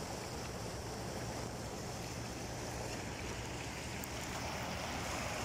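Steady rush of a fast-flowing, muddy flash-flood stream of rainwater in a desert wadi.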